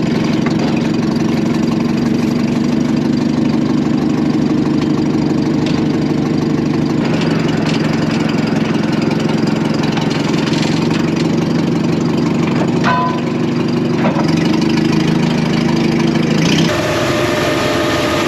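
Forklift engine running steadily as it carries bulk seed boxes, its note shifting about seven seconds in. Near the end the sound changes to a different engine running at idle.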